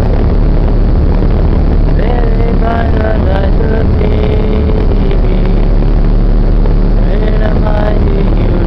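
Motorboat under way at speed: a loud, steady rumble of engine and rushing wake water. Faint voices singing come through over it, with a held note about four seconds in.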